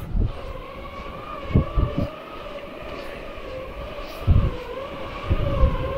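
A flying insect whining close to the microphone: one steady, slightly wavering high hum with overtones, broken by a few low thumps.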